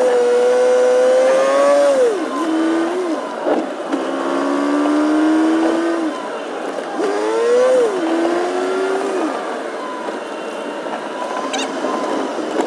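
A vehicle engine revving. Its pitch holds high, drops sharply about two seconds in, then climbs and falls again several times, like an engine working up through the gears.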